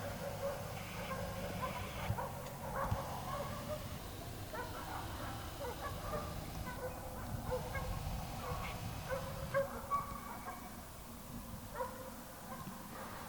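A pack of hunting dogs barking and yelping on the trail of wild boar, many short calls overlapping.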